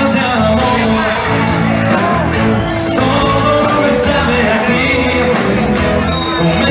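Live dance band playing a pop number, with drum kit, bass and electric guitar, and a singer's voice over the music.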